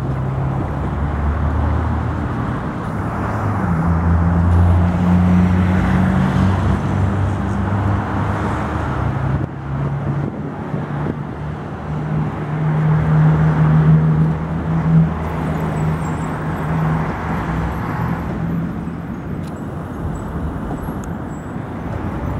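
Tatra trams running along the tracks, their electric traction equipment giving a low hum of a few steady notes that shift in pitch, over road traffic passing alongside.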